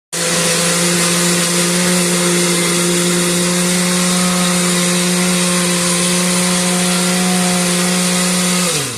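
Blender motor switched on abruptly and running at a steady high speed, blending banana and pecans into rum, then spinning down with falling pitch as it is switched off near the end.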